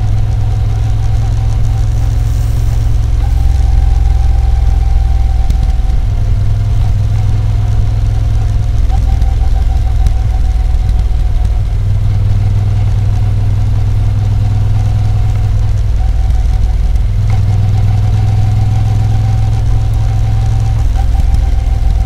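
Moto Guzzi V7 Special's 853 cc air-cooled transverse V-twin running steadily, a loud, deep engine rumble with no sudden changes in pitch.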